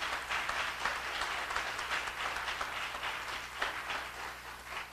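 Audience applauding: many hands clapping in a steady dense patter that eases off a little near the end.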